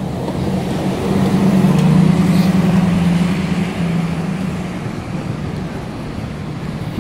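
Motor vehicle engine hum on a city street, growing louder about a second in and easing off after about three seconds, over general traffic noise.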